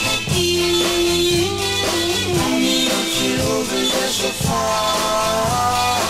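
A 1962 pop record playing: a band with guitar, holding long notes over shifting chords.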